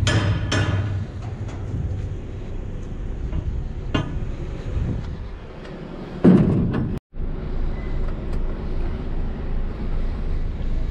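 Steel shipping-container doors clanking as they are swung open, with a lighter metal knock and a louder clank about six seconds in. After a brief cut, a large truck's diesel engine runs steadily.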